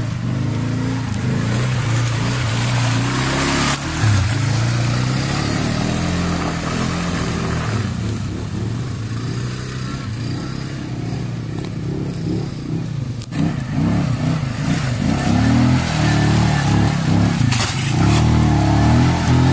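Quad bike (ATV) engines running and revving as the quads churn through deep mud, the engine note rising and falling with the throttle.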